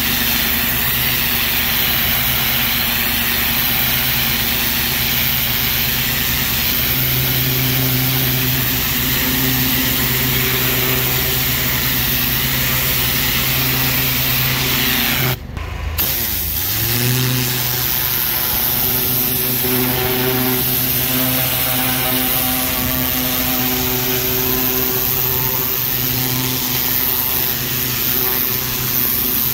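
Pressure washer running steadily, its motor humming under the hiss of the water jet spraying the brick. The sound drops out for an instant about halfway through, then picks up again.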